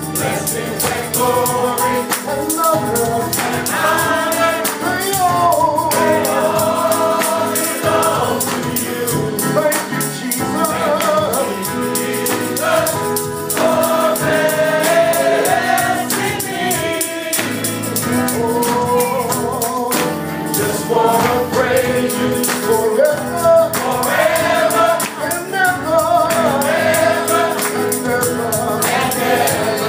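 Men's gospel choir singing a praise song in harmony, over a steady, fast percussion beat.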